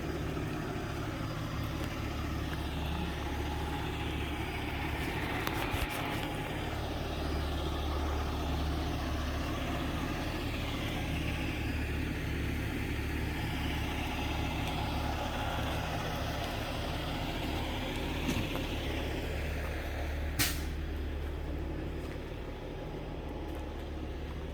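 Tow truck's engine idling steadily, a constant low hum, with one sharp click about twenty seconds in.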